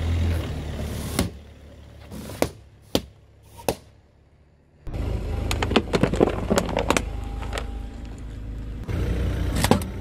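Car tyres rolling slowly over objects, with a low engine hum. Four sharp pops in the first four seconds as water balloons burst under the tyre; then, after a cut, a run of cracks and clatter as a plastic toy drum is crushed.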